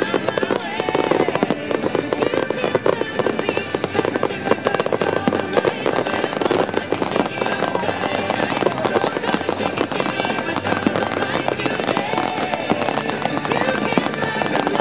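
Fireworks display going off non-stop: a dense stream of rapid bangs and crackling from shells, rising comets and ground-level fountains, with music playing underneath.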